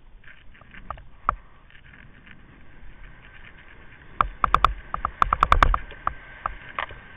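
Kite buggy rolling over bumpy beach sand with a faint steady rush, a couple of single knocks in the first second and a half, then a quick run of sharp rattles and knocks from the frame about four seconds in, as it bounces over ruts.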